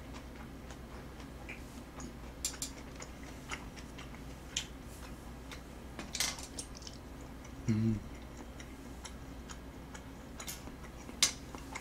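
Quiet eating sounds: sparse, irregular soft clicks of metal chopsticks against a metal tray, along with chewing of tteokbokki rice cakes.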